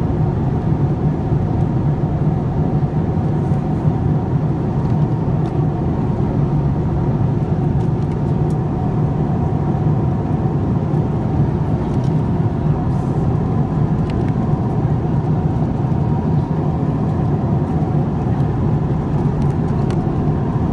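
Steady cabin drone of a Boeing 787-9 airliner in flight: engine and airflow noise with a strong low hum, unchanging in level, with a few faint clicks.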